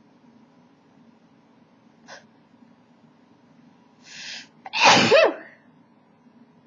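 A woman sneezes once, loudly, after a sharp in-breath; the sneeze is brought on by tickling inside her nostril with a cotton swab.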